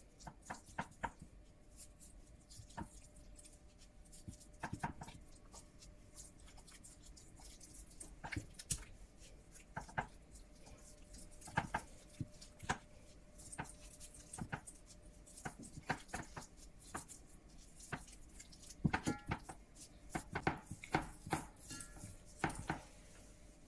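Raw chicken pieces being handled and turned over on a wooden cutting board: irregular soft slaps, taps and clicks, coming thicker toward the end.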